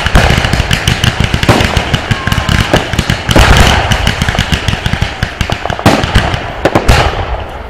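Aerial firework shells bursting overhead in a rapid, dense barrage of bangs and crackling stars, which thins out near the end to a few separate bangs.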